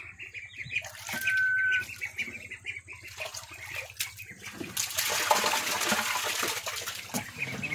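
Ducklings splashing and paddling in shallow water, with faint high peeping. About five seconds in, a burst of splashing lasts a couple of seconds, the loudest sound here.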